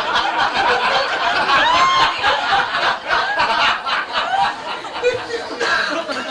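Audience laughter, with a high rising-and-falling call about two seconds in.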